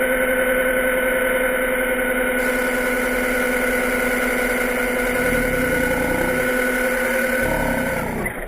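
Electric RC car motor whining at a steady high pitch, with a few low rumbles over the second half.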